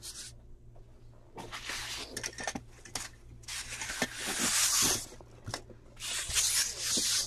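Styrofoam packing peanuts being swept and shuffled by hand across a tabletop, rustling and squeaking in three bursts with small clicks between them.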